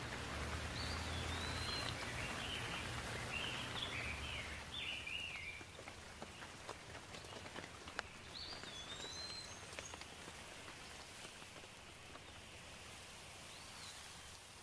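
Steady rain falling, with scattered louder drops, easing slightly after about five seconds. A bird chirps in short wavering phrases for the first few seconds and again briefly about nine seconds in.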